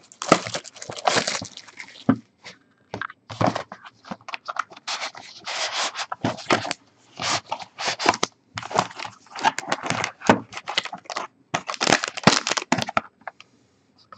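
A sealed cardboard trading-card box being torn open by hand: a run of short tearing, scraping and cracking noises with brief pauses between them.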